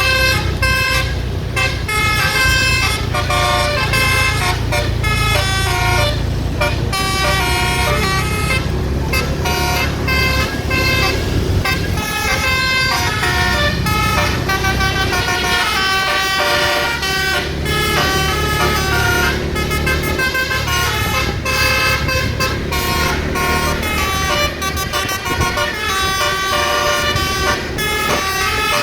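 Multi-tone basuri 'telolet' bus horn playing a fast melody of quickly changing notes, with the bus's engine rumbling low underneath.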